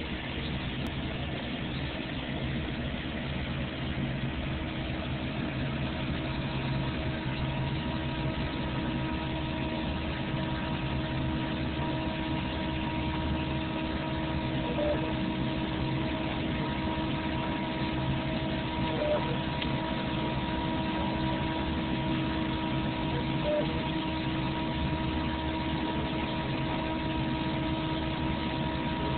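RepRap 3D printer running mid-print: its stepper motors and drive give a steady mechanical hum with several constant whining tones over a low rumble and hiss.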